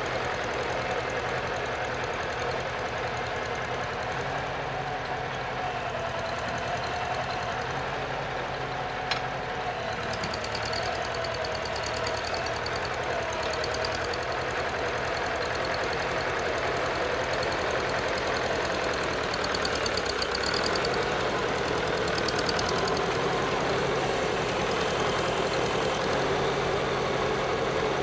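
Farmall Super C tractor's four-cylinder engine running steadily under load as it drags a rear blade through loose dirt. It grows louder over the last third as the tractor comes close.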